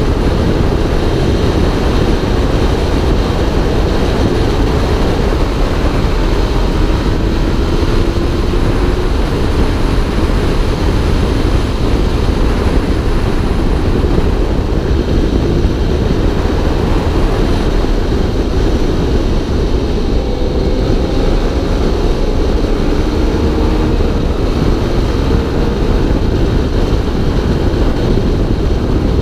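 Wind rushing over a helmet-mounted camera on a moving motorcycle, a steady loud rumble and hiss, with the motorcycle's engine running underneath and its pitch rising faintly a few times.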